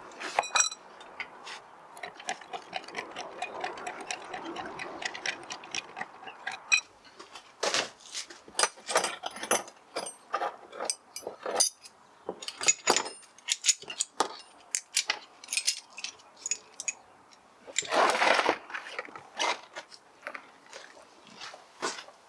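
Hand tools working on a car engine: an uneven string of sharp metal clicks and clinks, with a short rasping burst about eighteen seconds in.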